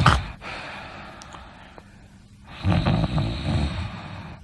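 A person snoring: a snore that ends in a sharp snort right at the start, a quieter breath, then another long, fluttering snore starting about two and a half seconds in and fading toward the end.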